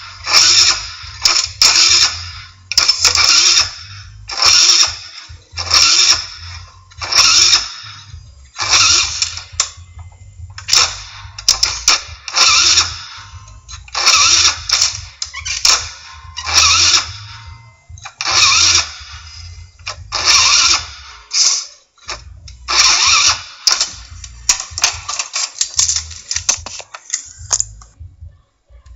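Scooter engine being cranked over and over in short bursts, about one every second or so, and not starting.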